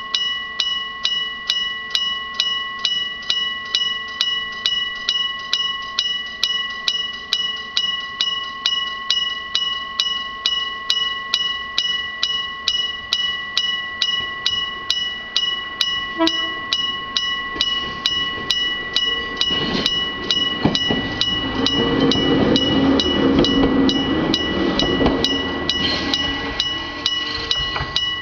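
Electric-bell level-crossing alarm ringing at about two strokes a second, each stroke leaving a steady ringing tone. About twenty seconds in, a train passes over the crossing with a louder rumble of wheels under the bell. The bell cuts off at the very end.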